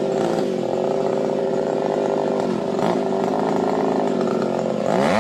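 Chainsaw's two-stroke engine running at a steady speed while the saw hangs from a climber on the trunk, not cutting.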